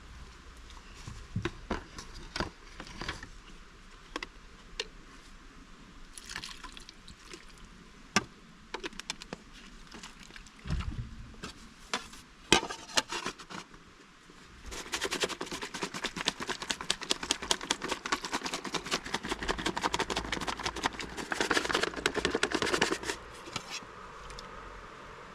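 Cooking preparation sounds: scattered clicks and knocks of utensils and containers being handled, then about halfway through a run of fast, even strokes lasting about eight seconds before it stops.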